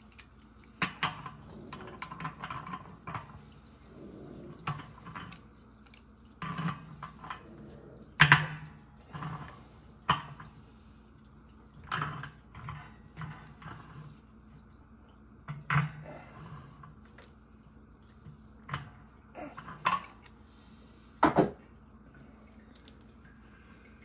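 Irregular metallic clinks and taps of a hand tool and hands working on a brass tee fitting on copper water-heater piping. About a dozen sharp knocks come at uneven gaps; the loudest is about eight seconds in, and a double knock comes near the end.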